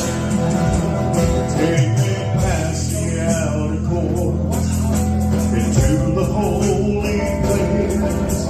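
A live band playing a gospel song, with sustained bass notes under a melody line and steady percussion.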